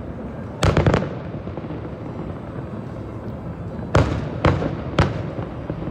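Aerial fireworks bursting: a quick crackling cluster of pops about half a second in, then three sharp booms in quick succession near the end, over a steady background din.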